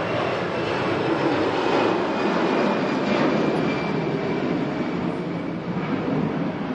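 Jet airliner engines rushing past with a faint high whine, swelling over the first couple of seconds and then slowly easing off.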